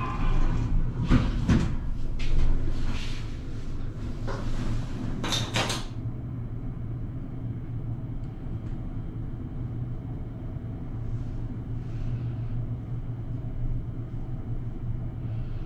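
Station elevator doors sliding open and closed, with several knocks and rustles in the first six seconds. Then the car travels down with a steady low hum and a faint high whine.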